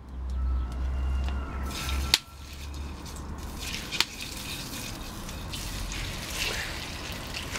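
Bacon sizzling in a hot frying pan on a wood-burning stove, the hiss growing after about two seconds, with a couple of sharp clicks. A low rumble, likely wind on the microphone, sits under the first two seconds.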